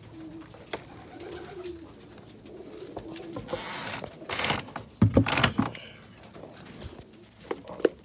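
Pigeons cooing, with rustling and a quick run of loud thumps about five seconds in.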